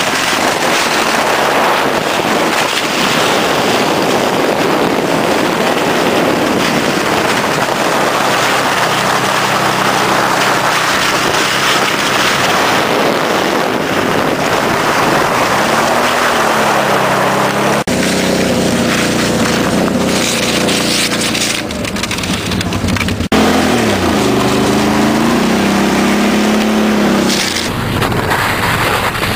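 Steady rushing of wind on the microphone and scraping over ice while being towed fast behind an ATV. In the second half the Can-Am Outlander 800's V-twin engine is heard revving up and down, broken by abrupt cuts.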